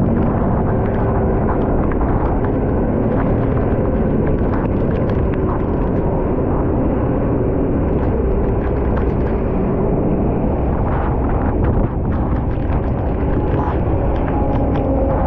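Fire engine driving at speed on a rain-soaked highway, heard from its front bumper: a steady rush of wind on the microphone and tyre spray over the engine's hum, with scattered ticks of rain striking the camera.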